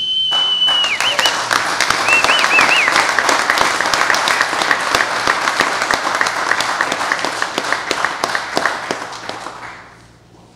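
Audience applauding after the signing of the agreements, fading out about nine seconds in. At the start a high whistle of cheering is held for about a second, followed by a few short warbling whistles.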